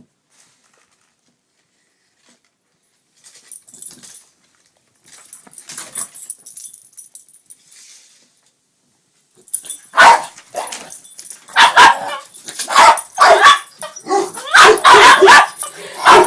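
Dog barking and yipping in quick repeated barks from about ten seconds in. Before that there is a near-silent stretch with only faint scattered sounds.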